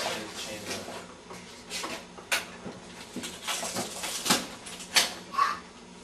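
Sharp clicks and light metallic clatter from a manual wheelchair's frame and parts as it is handled and positioned by hand, a few distinct knocks among them.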